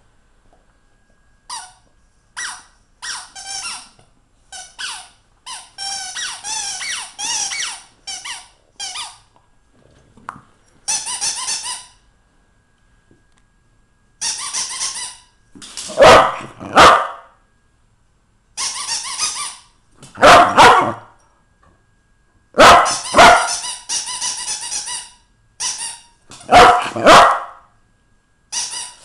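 A rubber squeaky toy squeaked over and over by dogs chewing it, in quick runs of short high squeaks. From about halfway through, a dog gives loud single barks, a few seconds apart.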